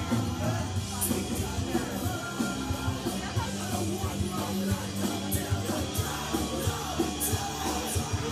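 Loud punk rock with shouted vocals over fast drums and guitars, with cymbal crashes throughout.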